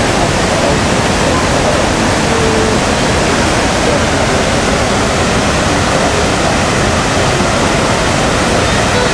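Niagara Falls pouring: a loud, steady rush of falling water with no break.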